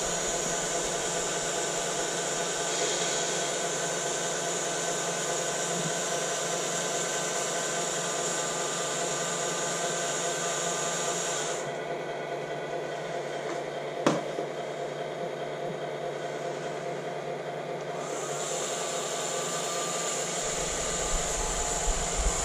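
Steady mechanical whirring hum with a hiss on top. The hiss falls away for several seconds in the middle, and a single sharp click comes a little past halfway.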